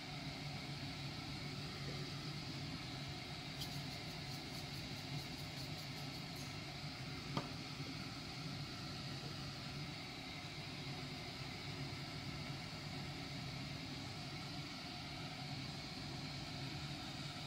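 Steady hiss and low hum of a lit gas stove burner under a pot of simmering soup, with a run of faint rapid ticks about four seconds in and a single click a little later.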